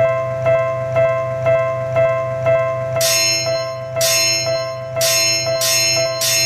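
Japanese railway level-crossing warning bell ringing its 'kan-kan' tone about twice a second. About three seconds in, louder, brighter bell strikes join in roughly once a second.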